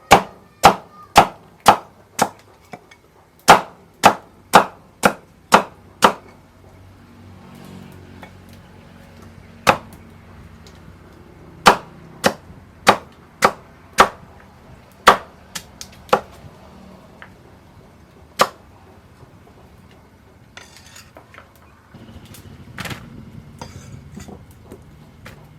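Knife chopping on a cutting board: a run of sharp, hard strikes about two a second, then slower, scattered strikes, with fainter rustling and clatter near the end.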